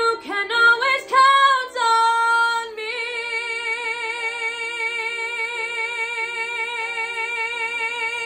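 A woman singing the last phrase of a musical theatre song: a few short sung notes, then from about three seconds in one long held note with steady vibrato, cut off sharply at the end.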